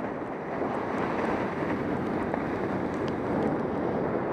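Steady rush of wind over the microphone of a skier's action camera during a downhill run, mixed with the skis sliding over soft, wet snow.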